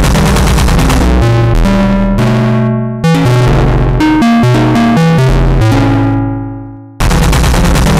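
Electronic music: synthesizer keyboard chords over a heavy bass line. The music dies away and cuts back in abruptly twice, about 3 seconds in and again about 7 seconds in.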